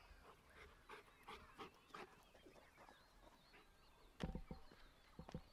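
Footsteps on dry field ground, faint at first, then a quick run of heavier footfalls from about four seconds in. Faint birds twitter in the background.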